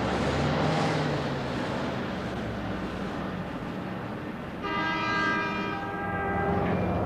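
A train running with a steady rumble. Its horn sounds one held blast of about two seconds, starting about two-thirds of the way in.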